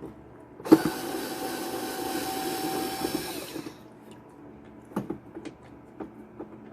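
A small electric motor whirs steadily for about three seconds, starting suddenly just under a second in. Scattered clicks and knocks of plastic parts being handled follow.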